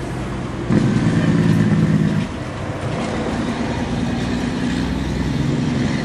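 A motor running steadily with a low drone. It grows louder from just under a second in to about two seconds in, then settles back.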